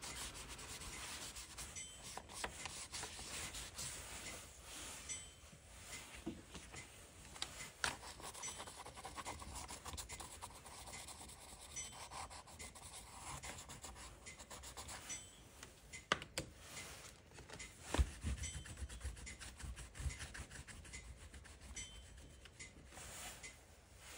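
Pastel and crayon sticks scratching and rubbing across sketchbook paper in quick, irregular strokes, faint throughout.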